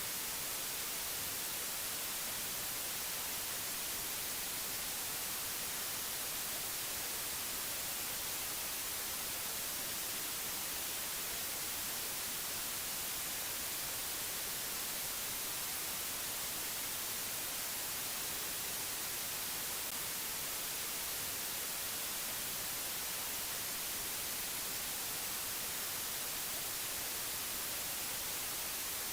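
Steady, unbroken hiss of static-like white noise, strongest in the high treble, with no change in level.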